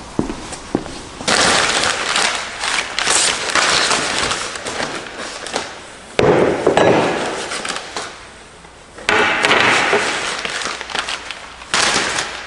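Packaging of new exhaust parts rustling and crinkling in several loud bursts, with small clicks and knocks as it is handled.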